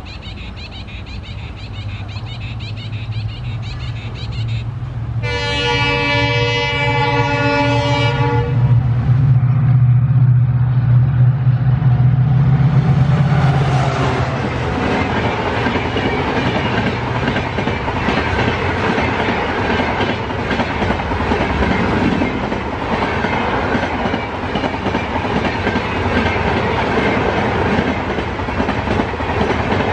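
WDP4D diesel locomotive, with its EMD two-stroke V16 engine, approaching at speed. It sounds its multi-tone horn about five seconds in for roughly three seconds. Its low engine drone swells as it passes, then its coaches rush by with steady rail and wheel clatter.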